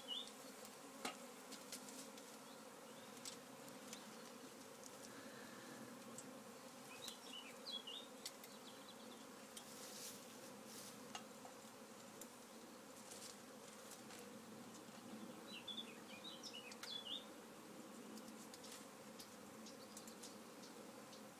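Faint steady buzzing of a honeybee swarm gathering at a nuc box entrance as it is being hived. Three brief bursts of high chirping about eight seconds apart sit over the hum.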